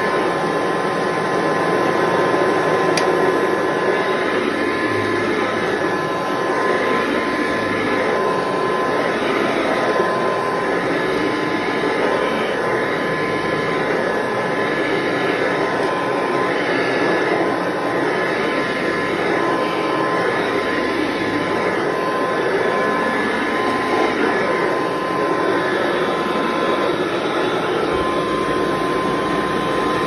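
Upright vacuum cleaner with a metal power nozzle running on carpet, a steady motor whine whose sound swells and fades about every second and a half as the nozzle is pushed back and forth.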